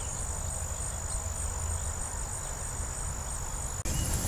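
Crickets trilling in a steady, high, even note over a low rumble. The trill breaks off near the end, where the sound changes abruptly.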